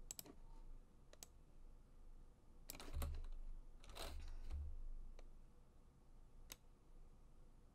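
Faint, scattered clicks of a computer mouse and keyboard keys, several in quick clusters about three and four seconds in, with a couple of low dull thuds alongside.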